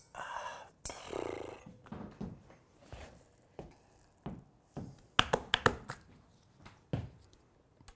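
A man's low, rough groan of frustration, then a quick cluster of sharp clicks and taps about five seconds in as he handles small metal parts of the tabletop rig, and a single click a second later.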